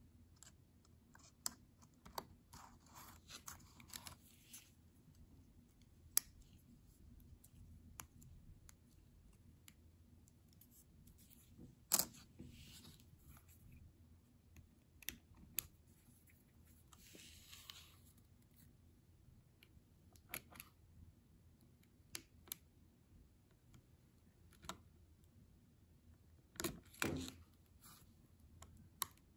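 Faint, scattered small clicks and brief scratching of a Surface Book keyboard's spacebar parts being worked by hand: the metal stabilizer bar clipped back in and the white plastic scissor mechanisms prised out with a small tool. A few clicks stand out, with a short run of them near the end.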